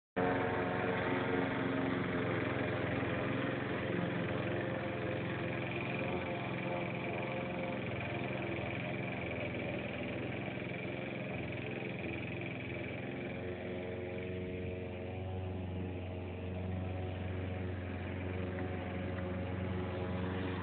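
Walk-behind gasoline rotary push mower's small engine running steadily under load while cutting tall grass, getting a little quieter for a few seconds past the middle as the mower moves farther off.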